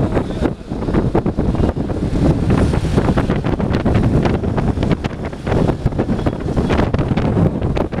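Wind buffeting the microphone at the open window of a moving vehicle, over the vehicle's engine and road noise.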